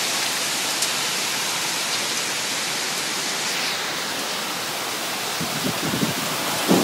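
Wind-driven hailstorm: hail and heavy rain pelting down in a steady, dense hiss. Low rumbling gusts come in near the end.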